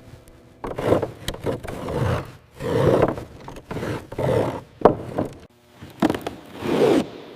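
Rhythmic scraping strokes, roughly one a second, with an occasional sharp click.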